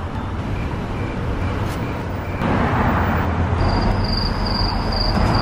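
Van engine idling with a steady low hum; about halfway through a broader rushing noise comes in, and near the end a high beep repeats about twice a second.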